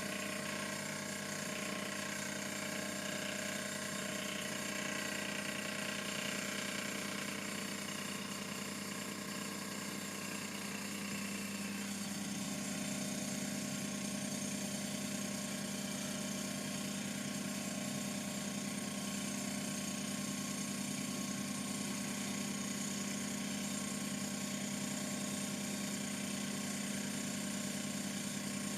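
TAIG milling machine running, its spindle motor giving a steady hum with a high whine over it. About twelve seconds in, the pitch pattern shifts and the lower hum grows stronger.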